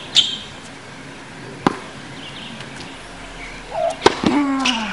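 Tennis ball knocks: two sharp single impacts, one about a third of the way in and one near the end, against a quiet outdoor court background with a few high chirps.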